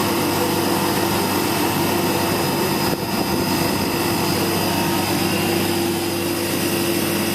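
Ice-bank milk cooler's refrigeration unit running steadily, with the compressor and fans giving a constant hum and a high whine. The system has just been recharged after a leak repair and is building ice on its evaporator coils.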